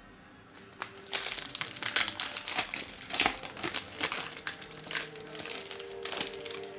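Plastic trading-card pack wrappers crinkling as packs are handled and opened, starting about a second in and going on in an irregular run of crackles.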